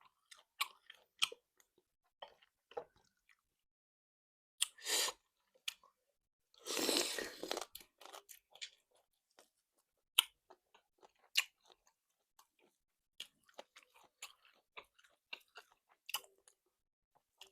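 Close-up chewing and biting of tough, chewy salt-cured chicken: a string of irregular wet mouth clicks and crunches, with a longer, louder crunching burst about seven seconds in.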